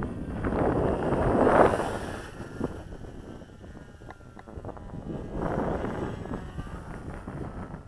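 Wind buffeting the microphone in gusts, loudest about a second and a half in and again around five to six seconds in. Behind it is the faint whine of a small electric RC model plane's motor and propeller overhead.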